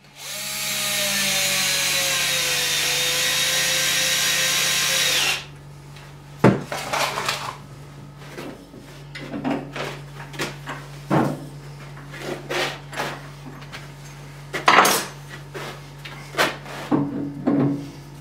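Cordless drill boring into a green aspen log for about five seconds, its motor whine sagging in pitch as the bit bites, then stopping abruptly. After it come scattered knocks and clatters of tools and wood being handled at a wood lathe while the blank is fitted, over a steady low hum.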